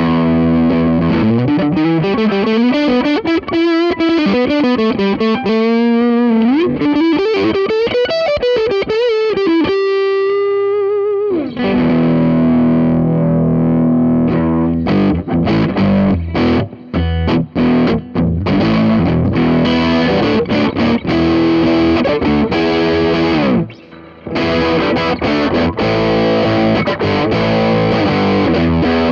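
Ibanez RG550 electric guitar played through an MXR Custom Badass '78 Distortion pedal. It opens with a single-note lead line full of string bends and vibrato that ends on a held note. It then moves to distorted chord riffing with short choppy stops and a brief gap about two-thirds of the way through.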